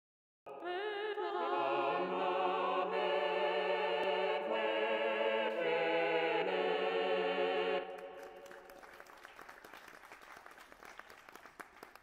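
Google Blob Opera's synthesized operatic voices singing wordless sustained chords together with vibrato, moving through several chord changes before stopping about eight seconds in. Fainter applause follows and fades away.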